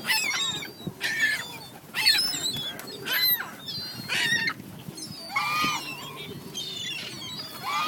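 Birds being fed calling over and over, a call about every second, some overlapping.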